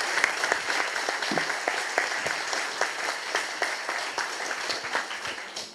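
Audience applauding: many hands clapping at a steady level, easing slightly near the end.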